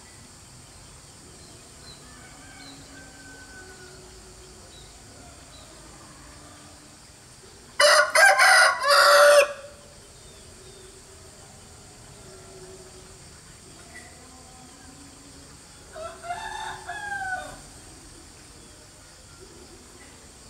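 A rooster crowing twice: one loud crow of about a second and a half, about 8 s in, and a fainter one about 16 s in, with faint short calls between.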